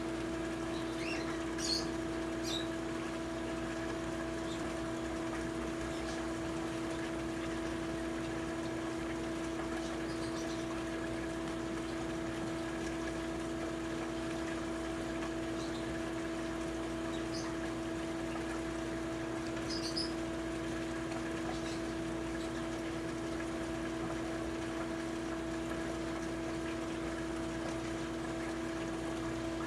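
Steady machine hum with a few constant pitches and no change in level, with a few faint, short high chirps scattered through it, mostly about two seconds in and around twenty seconds in.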